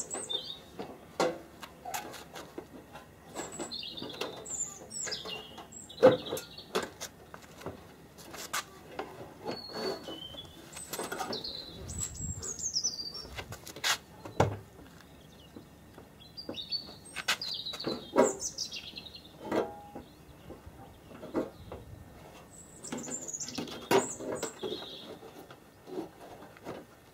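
Small birds chirping and trilling in short, repeated calls, mixed with scattered clicks and knocks as a car's front wing panel is handled and worked into place; a few of the knocks are sharp and louder than the birds.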